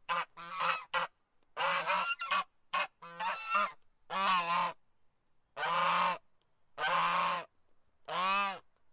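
Goose honking: a quick run of short, choppy honks, then four longer honks evenly spaced a little over a second apart.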